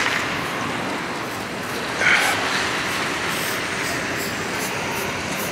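Steady city street noise: a continuous hiss of traffic on wet roads, with a short higher-pitched sound about two seconds in.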